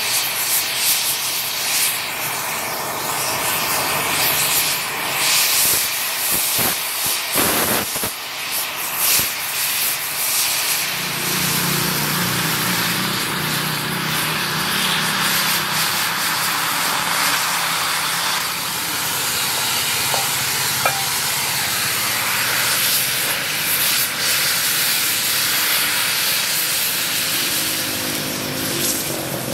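Oxy-fuel cutting torch hissing steadily as its oxygen jet cuts through a steel axle shaft. A lower hum joins about eleven seconds in.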